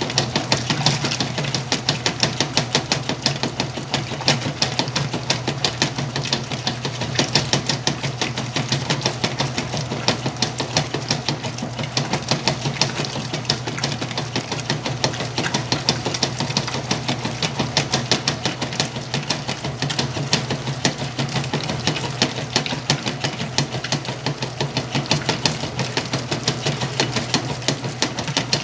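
Washing machine running a wash load of black jeans: a steady motor hum under a fast, even clatter that keeps going throughout.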